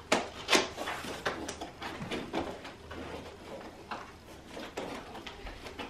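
Cardboard box of a new slow cooker being handled and worked open: irregular rustling, scraping and knocking of cardboard, with two sharp knocks in the first second.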